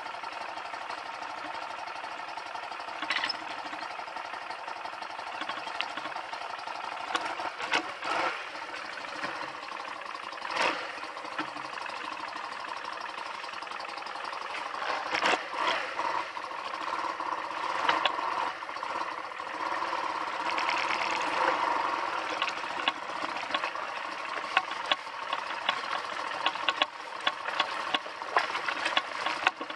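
BMW R100GS Paris-Dakar's air-cooled flat-twin engine running steadily, then louder from about halfway as the bike moves off at low speed. Scattered knocks and clatter, growing more frequent near the end.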